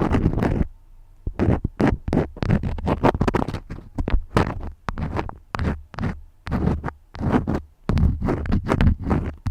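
Close-miked crayon strokes scratching rapidly back and forth, many quick strokes in a row with a short pause about a second in, each stroke carrying a dull low rub.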